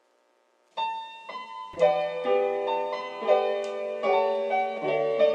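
Piano background music that starts about a second in, a few single notes at first and then fuller layered notes.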